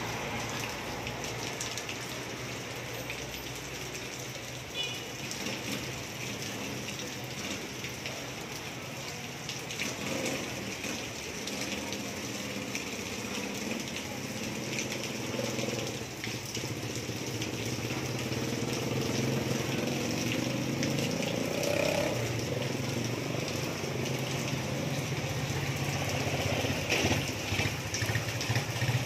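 Steady rain falling on wet pavement and roofs. A motorcycle tricycle's engine runs under it, getting louder in the second half as the tricycle comes close.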